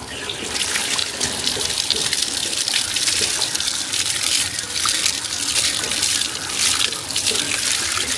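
Water running steadily from a tap or pipe and splashing as something is washed under it.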